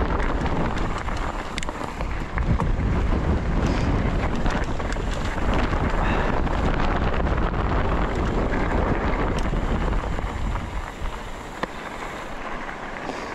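Wind buffeting the microphone over the crunch and patter of mountain bike tyres rolling on a loose, rocky dirt trail, with scattered clicks and rattles from the bike. The low wind rumble eases about ten seconds in.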